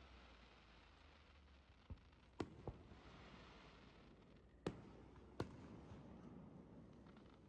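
Distant aerial fireworks shells bursting: five sharp bangs, one about two seconds in, then two close together, then two more a little past the middle, over a faint hiss.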